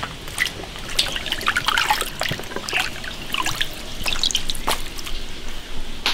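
Raw beef rib chunks are lifted out of a basin of soaking water, with water trickling and dripping off them and scattered small splashes and knocks as they are set into a wicker basket. The ribs were soaked to draw out the blood and are being taken out for blanching.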